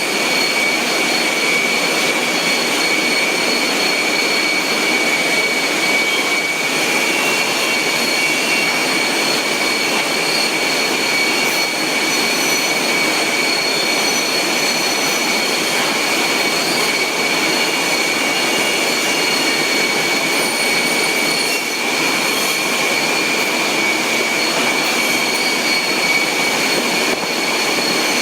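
Steady, unbroken machinery noise with a constant high-pitched whine running through it, from food-processing plant machines.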